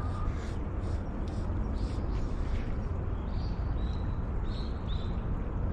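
Steady low outdoor rumble with a small bird calling in a series of about five short, high chirps in the second half.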